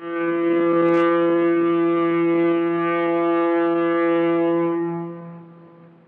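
Foghorn blast: one low, steady tone that starts abruptly, holds for about five seconds, then fades out.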